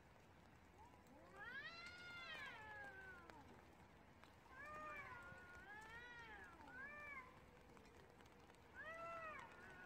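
Two stray cats yowling at each other in a standoff before a fight. One long wail rises and falls about a second in, then shorter arched cries overlap around the middle, and another comes near the end.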